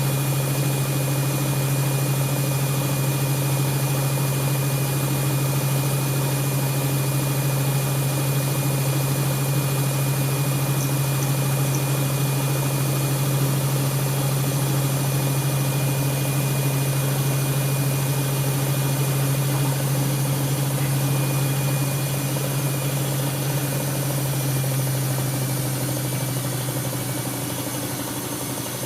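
Siemens Siwamat iQ washing machine running with a steady motor hum and a faint high whine, easing slightly in level near the end.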